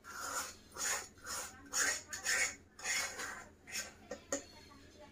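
A utensil scraping a sticky jaggery-and-peanut mixture out of a black metal pan onto a steel plate, metal on metal, in short repeated strokes about two a second.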